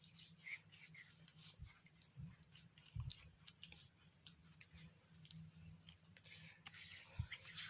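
Faint wet rubbing and squishing of hands working a gritty baking soda paste into the skin, with many small irregular crackles.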